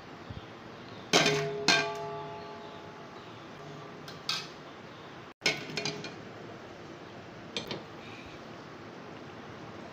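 Metal utensil clanking against a steel cooking pot: two sharp strikes about a second in leave the pot ringing, followed by a few lighter clinks. Under them runs a steady hiss of masala frying in oil.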